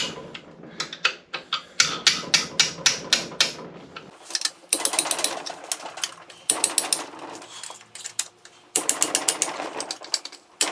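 Socket ratchet clicking in quick runs of strokes, several runs with short pauses between, as the overdrive section's bolts are turned down tight.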